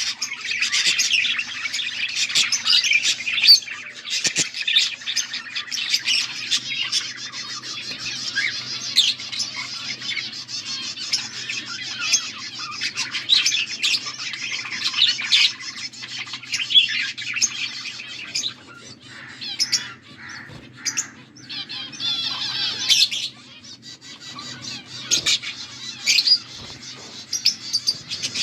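Several budgerigars chirping and chattering continuously, a flock's busy warbling that thins out for a few seconds past the middle before picking up again, over a faint steady hum.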